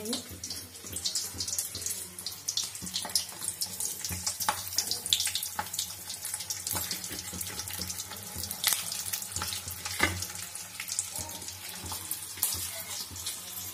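Stuffed green chillies frying in hot oil in a kadhai, a steady crackling sizzle with a few louder pops as they are laid in.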